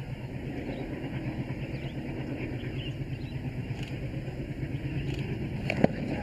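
ALCO diesel locomotive's engine running with a steady low, pulsing drone as it hauls a passenger train, with a single sharp click near the end.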